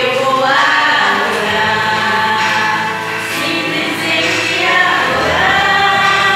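Women singing a gospel song into handheld microphones, their voices amplified, with sustained held notes.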